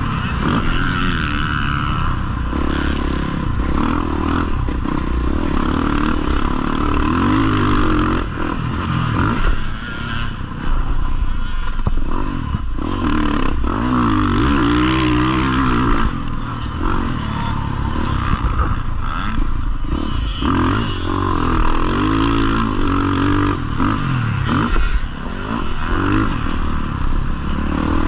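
Husqvarna FC 450's 450 cc single-cylinder four-stroke engine being ridden hard, its pitch rising and falling again and again as the throttle is rolled on and off, with a couple of short drops in level.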